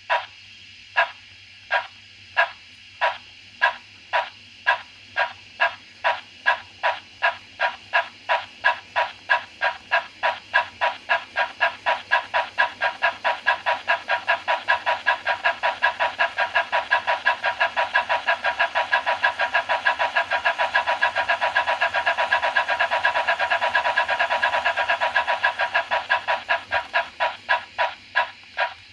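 Märklin 37080 model locomotive's digital sound decoder playing steam-engine chuffs, starting at about one and a half beats a second, quickening to a fast even beat, then slowing again near the end as the locomotive speeds up and brakes.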